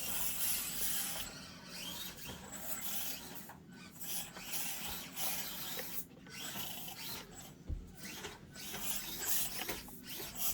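Axial SCX24 micro RC crawler's small electric motor and gearbox whirring in stops and starts, with its tires scraping and scrabbling over the course.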